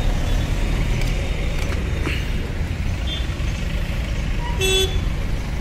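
One short vehicle horn toot near the end, over a steady low rumble.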